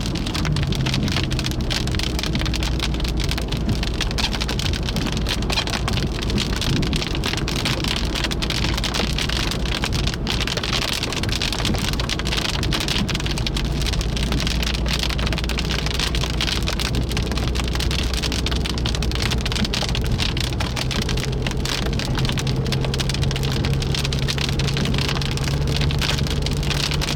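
Heavy rain falling steadily, a dense hiss of drops from a thunderstorm supercell, with a steady low engine hum underneath.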